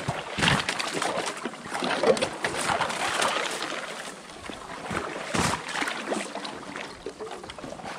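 Someone wading through shallow, ice-covered water: thin ice crunching and breaking with splashing, in irregular steps, the loudest crunches about half a second, two seconds and five and a half seconds in.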